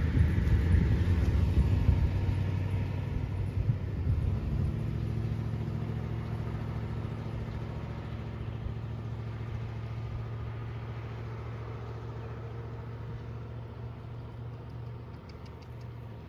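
An engine running with a low rumble, settling into a steady hum that grows gradually fainter.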